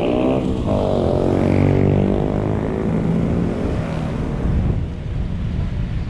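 Vehicle engine accelerating on a road: its pitch drops sharply about half a second in, climbs steadily again, and fades after about four seconds into a steady rumble of road and wind noise.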